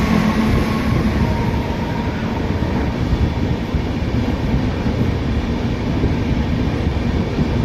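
Passenger express train running, a steady rumble and rattle of wheels on rail heard from inside the moving coach.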